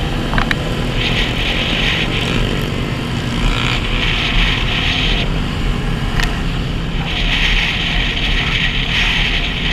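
Motorcycles running at cruising speed in a group: a steady low engine drone, with a rushing hiss that swells and fades three times, heard from a helmet-mounted camera on a riding motorcycle.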